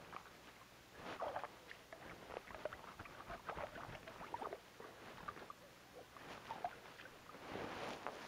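Faint, scattered scratchy ticks and rustling from gloved hands and clothing working a small ice-fishing jigging rod. A louder rustling shuffle comes near the end as the angler shifts his legs on the snow.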